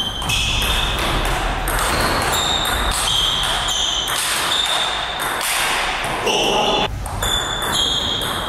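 Table tennis ball clicking off the bats and table through a rally, over the steady background noise of a large hall.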